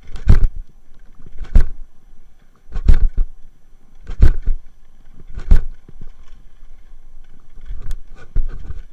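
A bicycle rolls along a dirt track behind a two-dog team, with steady rumble from the tyres and wind. Over this comes a sharp knock and rattle about every 1.3 seconds, five times, followed by rougher, quicker bumping near the end.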